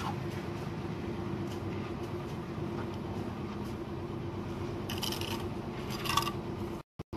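Bricks scraping as they are handled and laid in a wall, two short scrapes about five and six seconds in, over a steady low machine hum with a held tone. The sound cuts out twice briefly near the end.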